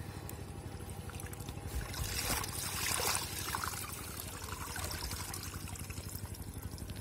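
Muddy water trickling and dribbling out through a woven bamboo basket as it is lifted and tilted to drain the catch, with a few soft splashes.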